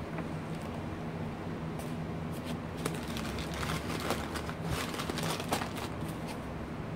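Cardboard and plastic packaging being handled, heard as scattered light rustles, crinkles and clicks, busiest from about two seconds in until shortly before the end, over a steady low hum.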